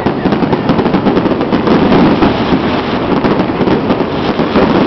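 Fireworks going off in a dense, continuous crackle of many small bangs.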